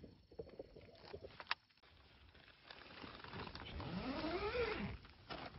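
Nylon tent zipper being drawn along the seam, a rasp whose pitch rises and then falls as the pull speeds up and slows, after a single small click.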